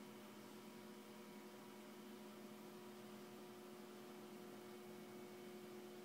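Near silence: a faint steady hum over low hiss, room tone.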